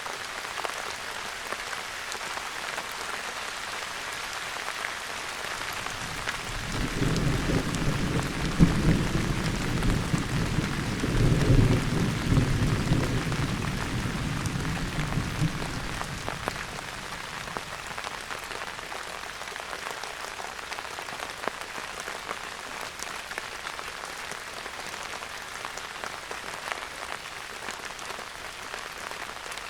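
Steady rain with patters of drops, and a roll of distant thunder that rumbles in about seven seconds in, peaks twice, and dies away after about nine seconds.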